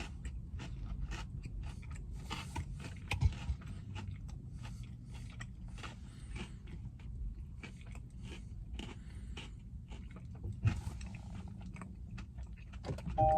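Close-up chewing of a Reese's Take 5 candy bar: irregular crunching of its pretzel and peanut centre, with a couple of louder crunches.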